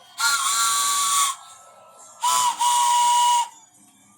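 Toy train whistle blown in two long blasts of about a second each, the second starting about two seconds in: a steady whistle tone with heavy air hiss, dipping briefly in pitch as each blast starts.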